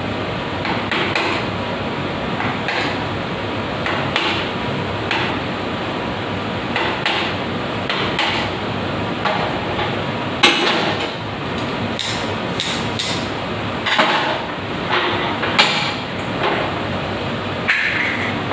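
Hammer striking a chisel to cut out the broken threaded stub of a valve left inside a wall water-pipe fitting. Sharp metal taps come at irregular intervals, the hardest about ten seconds in, over a steady background hum.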